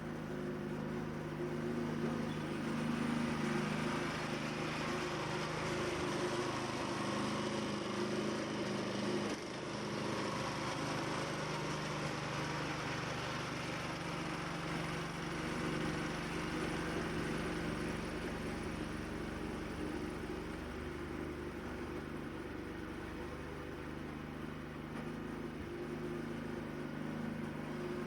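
An engine running steadily, its level dipping slightly about nine and a half seconds in.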